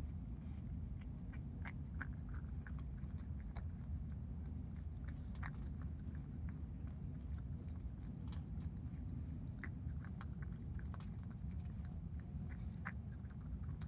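Opossum chewing food: irregular, rapid small clicks of its jaws and teeth working, over a steady low background rumble.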